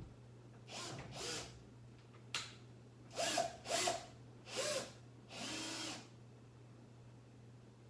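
Cordless drill run in about six short trigger bursts of a second or less each, with a sharp click between the first ones.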